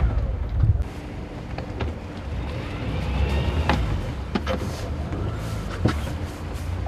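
Low steady rumble of a sailing yacht's engine running, with a few sharp clicks and knocks.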